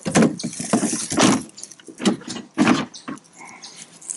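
Close handling noise: about half a dozen irregular knocks and rustles as the camera and a hand move about the front of a utility vehicle, with no engine running.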